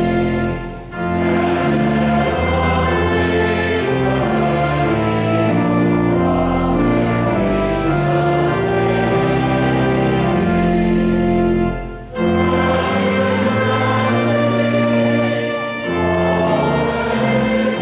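Church organ playing a hymn in held chords, with a choir and congregation singing along. The music breaks briefly between lines about a second in and again about twelve seconds in.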